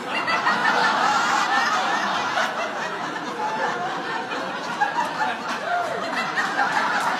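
Studio audience laughing together, the laughter swelling up at once and carrying on steadily.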